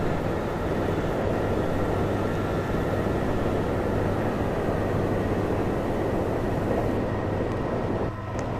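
Washing machine running, a steady noisy whirr over a constant low hum; it eases off a little about eight seconds in.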